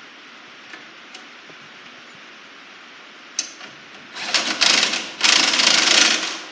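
Ratchet wrench cranked quickly on a bolt at a planter's closing-wheel arm, snugging it up: two spells of rapid clicking starting about four seconds in, the second a little longer.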